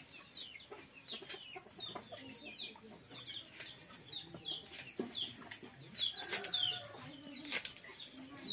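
Birds chirping: many short downward chirps, several a second, with a few sharp knocks about five seconds in and near the end.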